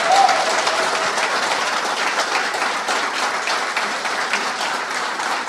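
Audience applauding: many people clapping together, slowly fading. A brief shout rises above the clapping right at the start.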